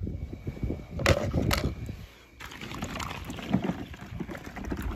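Water sloshing and splashing, with a couple of brief knocks a second or so in.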